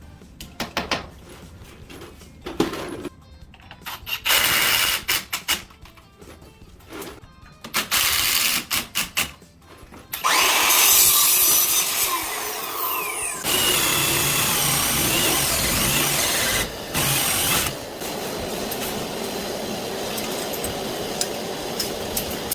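Power tool, such as a drill, run in short on-off bursts, then running longer and more steadily with a few falling whines; background music underneath.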